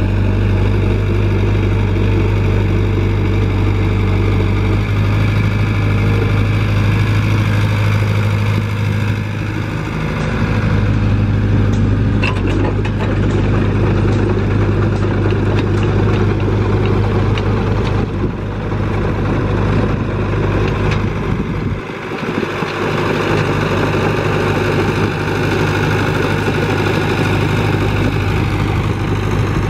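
Komatsu mini excavator's diesel engine running at working revs while it digs and tracks, its pitch and load shifting several times, with a brief drop about 22 seconds in.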